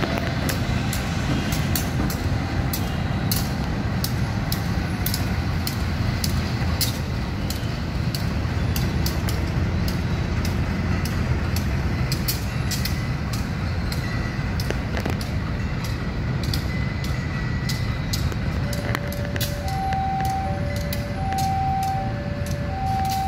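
Diesel-electric locomotive engine idling with a steady low rumble, with scattered sharp clicks. About three-quarters of the way in, a railway level-crossing warning alarm starts, sounding two alternating tones over and over.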